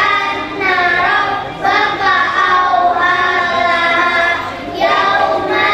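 A group of children singing together in unison, with sustained notes that glide and break between phrases.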